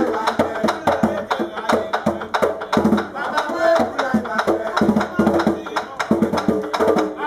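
Danmyé music: a bèlè hand drum beating a quick, steady rhythm, with sharp wooden clicks and voices singing over it.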